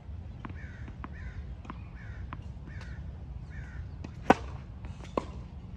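Tennis ball bounced repeatedly on a hard court before a serve, then struck hard by the racket on the serve about four seconds in, with a second racket hit just under a second later. Crows caw several times in the background between the bounces.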